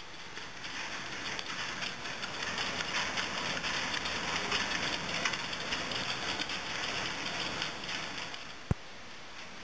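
Dog treadmills running with dogs trotting on the belts: a steady rushing noise that stops with a sharp click near the end.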